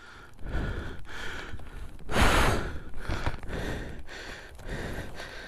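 A man breathing hard and panting, with one loud gasping breath about two seconds in: he is out of breath from struggling with his fallen motorcycle.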